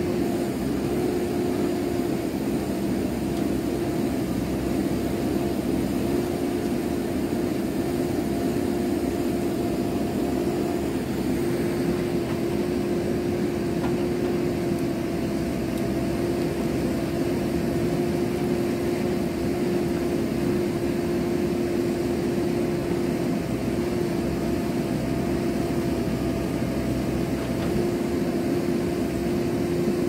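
JCB backhoe loader's diesel engine running steadily under working load as the backhoe arm digs through landslide soil, a constant drone with a steady hum.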